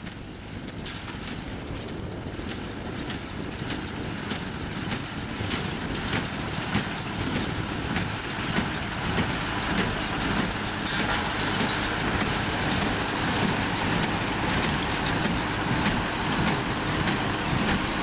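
Engine-driven inline small square baler and hay accumulator working in a field: a steady engine note with the baler's mechanical clatter. It fades in and grows louder over the first several seconds.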